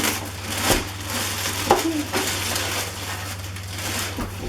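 Large cardboard box being shifted and moved: rustling and scraping cardboard with a few sharp knocks.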